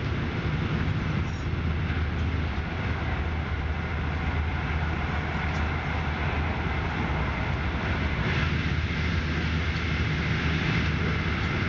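Passenger train running at speed, heard from inside the carriage: a steady low rumble of wheels on track with a rushing hiss that grows a little brighter about eight seconds in.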